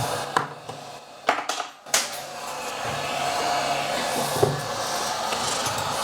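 Hot air rework station blowing steadily, heating the board around the CPU. It drops out for about a second and a half near the start, with a few small clicks and taps of metal tools, then blows again.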